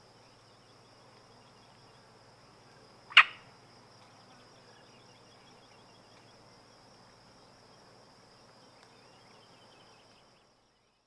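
Marsh ambience: a steady high insect buzz and a low hum, with one short frog croak about three seconds in and faint chirps. The sound cuts off near the end.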